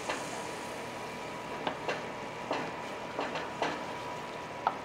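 Wooden spoon scraping and stirring through simmering pan gravy in a metal roasting pan, over a steady sizzling hiss, with short scrapes every half second or so at irregular intervals. The gravy, deglazed with white wine and chicken stock, is simmering to cook off the alcohol.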